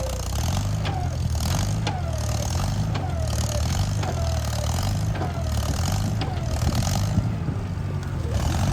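Track loader's diesel engine running with revs rising and falling, with a short falling metallic squeal and knock repeating about once a second.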